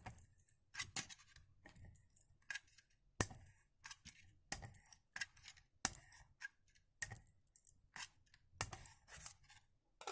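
Scissors cutting and scraping at the plastic of a power strip housing to widen a hole, a run of irregular short sharp snips and scrapes.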